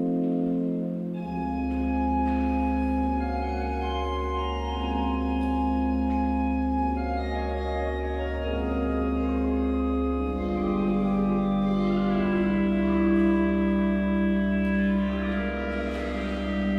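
Church pipe organ playing slow, sustained chords, with a deep pedal bass note coming in about a second in and moving to a new note about ten seconds in.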